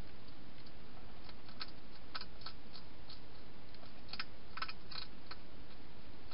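Wild hedgehog eating dry food: irregular short, sharp crunching clicks, coming thickest and loudest in the second half, over a steady hiss.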